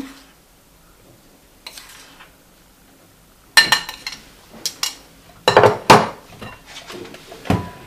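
Metal spoon scraping and knocking against a bowl as flour is spooned and tipped into cake batter: a series of sharp clinks and scrapes starting about halfway through.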